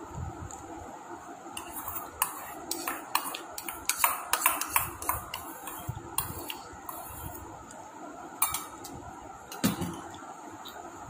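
Irregular clinks and scrapes of eating utensils against a dinner plate during a meal. They come thickest in the first half, with a couple of sharper knocks near the end.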